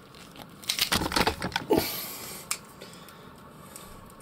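Hands handling a plastic action figure. A quick run of plastic clicks and rattles comes about a second in, followed by a couple of single clicks.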